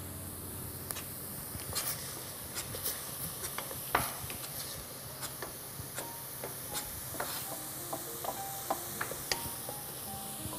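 Chef's knife slicing veal into strips on a plastic cutting board: irregular sharp taps of the blade striking the board, several a second at times, over a steady faint hiss.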